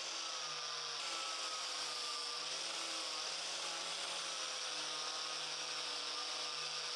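Angle grinder running steadily with a purple strip disc, stripping light mill scale from quarter-inch steel flat bar; an even whine that holds nearly the same pitch throughout.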